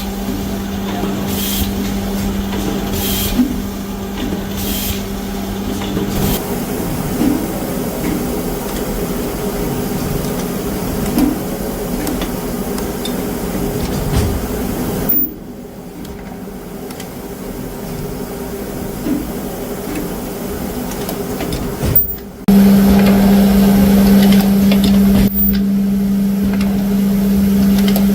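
Zipper-making machinery running with a steady electric hum, with faint regular strokes about every second and a half in the first few seconds. The sound changes abruptly several times, dropping quieter about halfway through and returning louder near the end.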